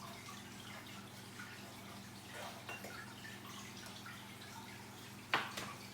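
Faint taps and rustles of cut cucumber pieces and chopped dill being laid into a small glass jar, with one sharp knock a little over five seconds in.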